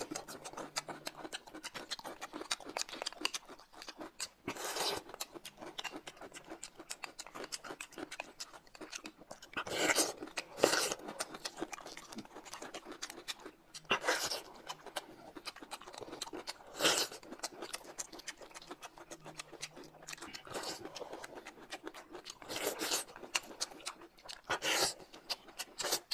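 Close-up eating sounds of two people: steady wet chewing and lip smacking, with several louder slurps as spoonfuls of corn soup are sipped.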